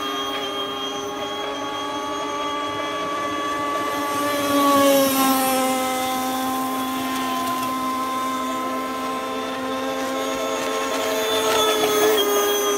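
Radio-controlled speedboats running flat out: a steady high motor whine with several pitches at once. It gets louder and drops slightly in pitch as one boat passes close about five seconds in, and swells again near the end as another comes by.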